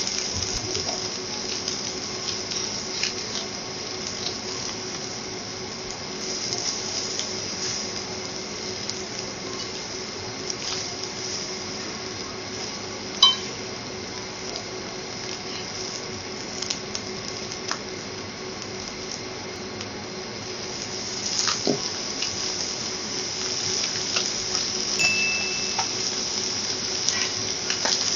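Seafood and vegetables sizzling steadily on a teppanyaki steel griddle, with scattered clicks and scrapes of a metal spatula and fork on the griddle and one sharp metal clink about halfway through. The sizzle grows louder in the last third as the shrimp and salmon cook and steam.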